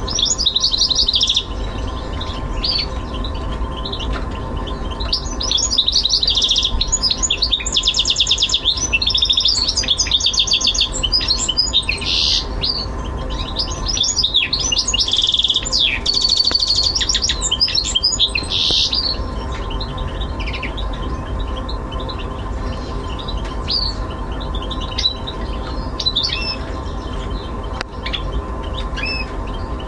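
Caged goldfinch mule (goldfinch × canary hybrid) singing: bursts of fast, high trills and twitters for about the first twenty seconds, then sparser short calls.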